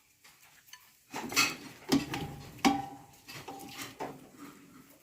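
Kitchenware being handled: a few sharp knocks and clinks, some ringing briefly, the loudest about a second and a half, two seconds and nearly three seconds in.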